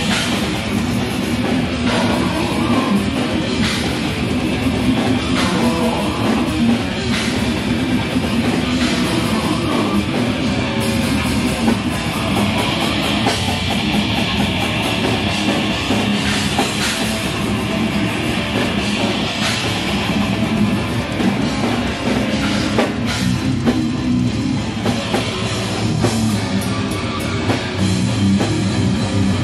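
Loud heavy rock music with a drum kit and electric guitars, playing steadily.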